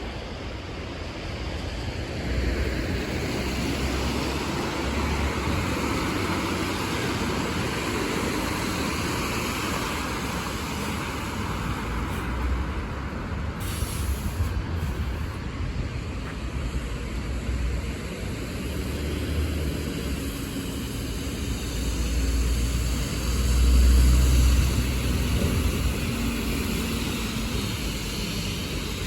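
Buses and road traffic passing on a rain-wet street: a steady hiss of tyres on wet tarmac under an engine rumble that swells and fades, loudest about four-fifths of the way through as a vehicle passes close.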